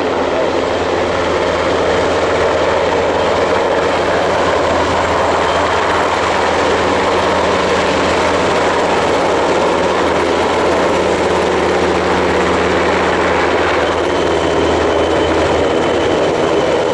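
NH90 twin-turbine helicopter hovering close overhead, its main rotor and turbines running as a loud, steady noise with a low hum.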